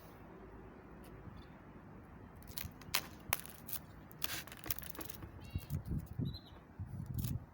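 Sharp clicks and light knocks from work on a wire bird cage: a quick run of clicks from about two and a half to five seconds in, then duller low thumps near the end.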